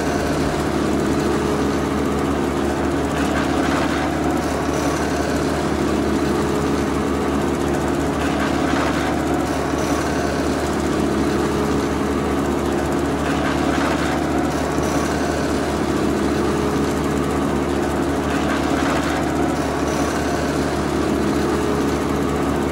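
Miniature belt-driven chaff cutter running steadily on its small electric motor, with a steady low drone and a brief rise in noise every few seconds as grass stalks are fed through the blades.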